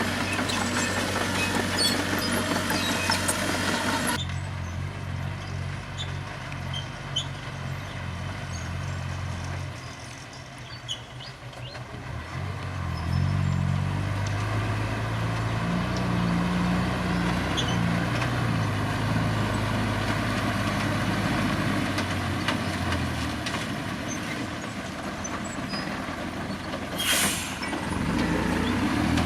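Heavy diesel dump truck engine running, its drone shifting and rising in pitch partway through, with a short hiss of air-brake release near the end.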